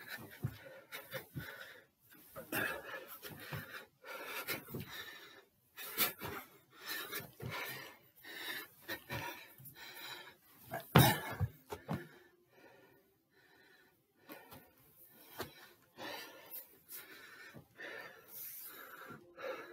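A man breathing hard and wheezing from exertion, mixed with irregular footfalls and knocks on a staircase; one sharp thump about eleven seconds in is the loudest sound.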